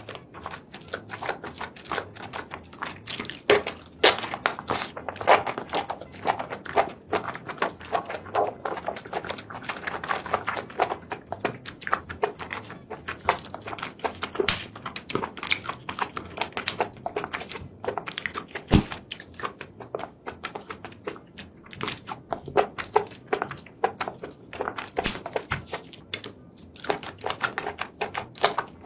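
Close-up eating sounds of a spicy sauced seafood platter: a dense, rapid run of clicks and crackles as sauce-covered seafood is pulled apart and handled, with kitchen scissors cutting a cooked octopus about halfway through, and chewing and biting near the end.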